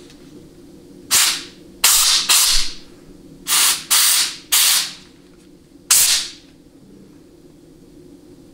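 Compressed air from a hand blow gun with a rubber-hose nozzle blasted in about six short hisses into the clutch apply passages of a 700R4 automatic transmission case during a case air check, testing that the clutches and bands apply.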